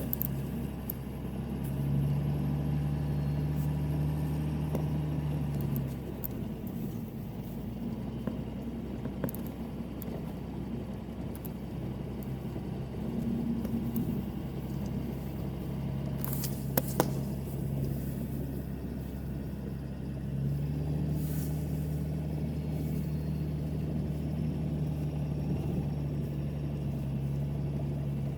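A car or truck driving, with a steady engine hum and road noise. The engine note strengthens about two seconds in, eases a few seconds later and rises again past the middle. A couple of sharp clicks come just after the middle.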